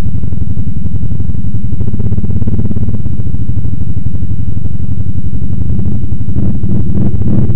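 Honda 420 ATV's single-cylinder engine running steadily at low revs, loud and close as the quad turns on a dirt trail.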